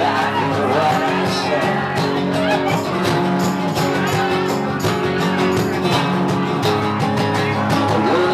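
Live band playing with acoustic guitars strumming over a steady beat.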